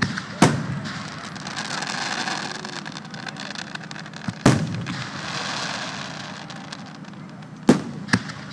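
Aerial fireworks bursting: sharp bangs about half a second in and again at four and a half seconds, then two close together near the end, with stretches of crackling between them.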